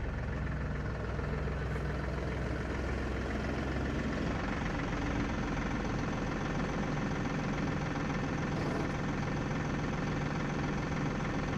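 Diesel tractor engine running steadily at idle.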